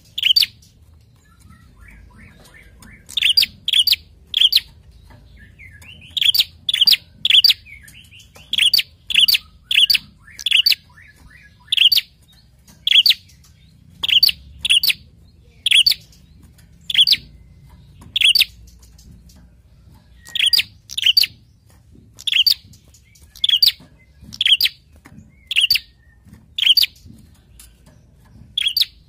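A caged prenjak (a tailorbird) calling: loud, sharp, high chip notes, sometimes in quick runs of three to six and sometimes singly about a second apart, with a faint twitter under the first few seconds.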